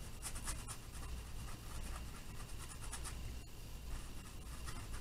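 Flat paintbrush dragged in several short strokes across a canvas, dry-brushing acrylic paint with its chiseled edge: a soft, scratchy bristle-on-canvas swish with each stroke.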